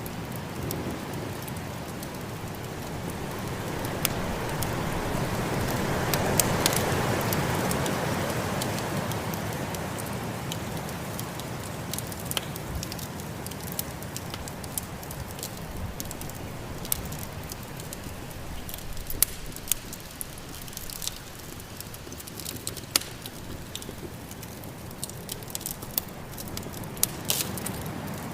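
Wood fire crackling in a fireplace with sharp pops scattered throughout, over the steady noise of snowstorm wind that swells in a gust a few seconds in and then eases off.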